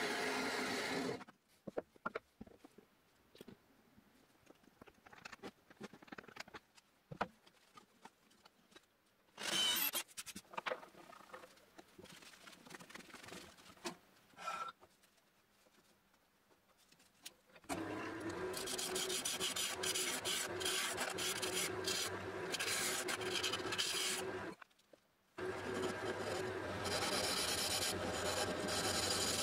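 A bandsaw cutting through a hardwood block, stopping about a second in; then quiet handling with scattered clicks and one brief loud clatter near the middle. From a little over halfway through, an Axminster wood lathe runs while a gouge cuts the spinning blank, a steady scraping cut that breaks off once briefly.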